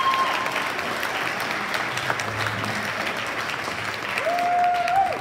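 An audience applauding steadily, with one drawn-out call from someone in the crowd held for about a second near the end.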